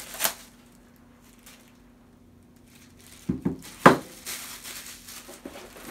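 A Milwaukee M18 battery pack being handled and set down on a tabletop: a few light clicks, then a sharp knock about four seconds in, followed by light rustling and handling noise. A faint steady hum runs underneath.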